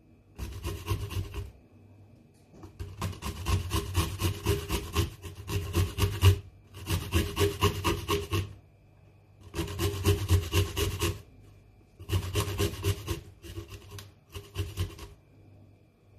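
A garlic clove being grated on a handheld metal grater braced on a wooden cutting board: runs of quick scraping strokes in about eight bursts, with short pauses between them.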